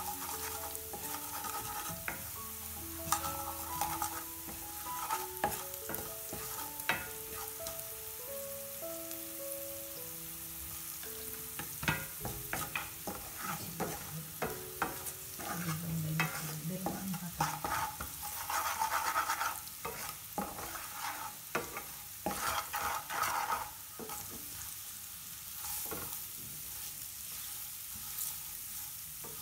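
Wooden spatula stirring and scraping onion, garlic and green chillies as they fry and sizzle in oil in a metal frying pan, with frequent knocks of the spatula against the pan. Faint background music plays underneath, mostly in the first half.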